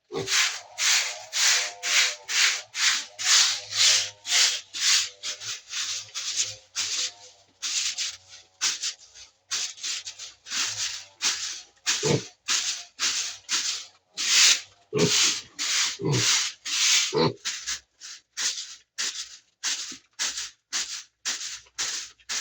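Small pigs eating their snack, loud rhythmic chewing and munching at about two to three chews a second.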